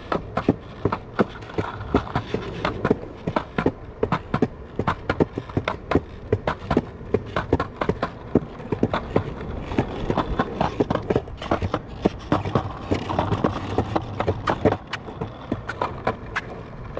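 Skateboard rolling slowly on a concrete sidewalk: a low rolling rumble under many sharp clacks, several a second, mixed with the footsteps of someone walking close alongside.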